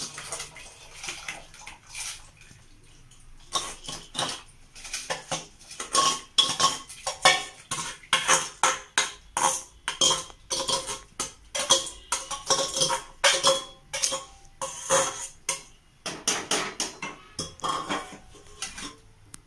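A steel ladle knocking and scraping against an aluminium pressure cooker as soaked rice and moong dal are stirred into the boiling water. The clinks come thick and irregular for most of the stretch, with a short pause about sixteen seconds in.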